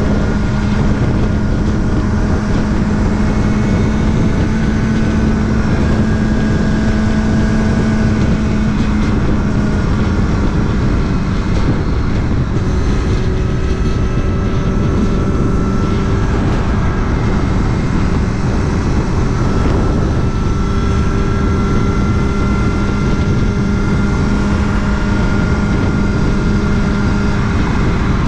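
Kawasaki Ninja ZX-6R's inline-four engine running at a steady cruise, a constant drone that shifts slightly in pitch about halfway through.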